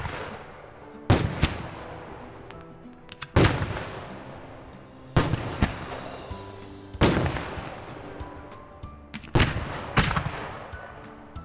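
Fireworks bursting in loud bangs about every two seconds, around six in all, each followed by a long fading tail. Music with held notes plays underneath.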